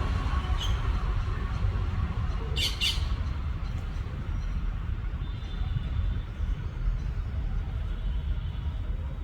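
A few short, sharp bird calls over a steady low rumble, with two calls close together about three seconds in.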